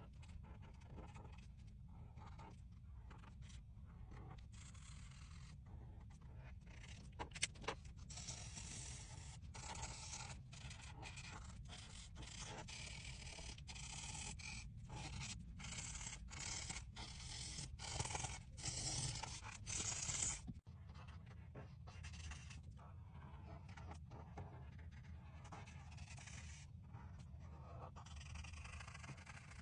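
Felt-tip marker rubbing on paper in many short colouring strokes with brief pauses between them, louder through the middle stretch.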